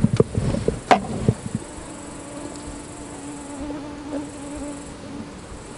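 A few sharp plastic clicks from the bait syringe being handled, then a flying insect buzzing close to the microphone: one steady low hum lasting about three seconds.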